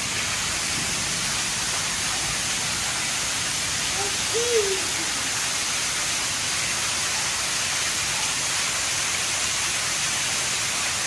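Heavy rain falling, a steady hiss with no letup. A short pitched sound rises and falls about four and a half seconds in.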